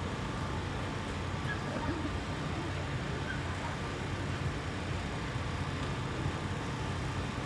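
Steady outdoor background noise: an even rumble with a constant low hum, with no distinct events.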